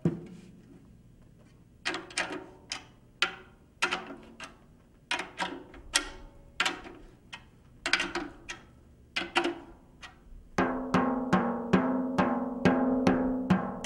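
Resonant (bottom) head of a 12-inch Pearl tom tapped near each tuning lug to check that the pitch is even all around the head. Single and paired taps, each with a short ringing tone, then a quicker run of taps near the end with a steadier ring.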